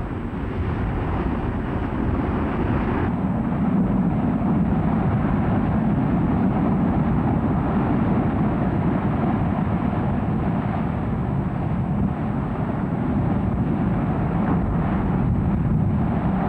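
A steady, low rumbling noise without any clear pitch or rhythm.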